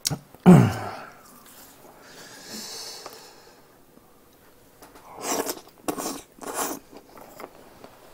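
A man sniffling and snorting through his nose while chewing, his nose stung by hot mustard. A short grunt comes about half a second in, a drawn-out wheezy breath follows around two to three seconds in, and three sharp sniffs come around five to seven seconds in.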